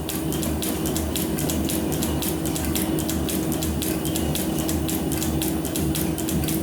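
Metal planer running a cutting stroke, its tool peeling a chip off a steel bar on a light cut of about three thou. There is a steady machine hum with one held tone and a rapid, evenly spaced ticking.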